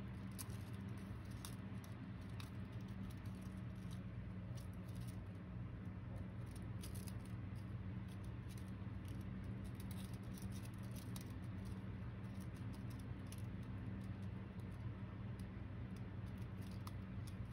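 Thin paper of a cut index card crackling and rustling in small, irregular ticks as it is slowly unfolded by hand, over a steady low hum.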